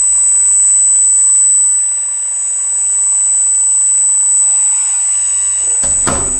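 Hydraulic pump and electric motors of an RC Bobcat skid-steer loader model running with a steady high whine as its forks lift a stone-filled wire basket. There is a sharp knock near the end.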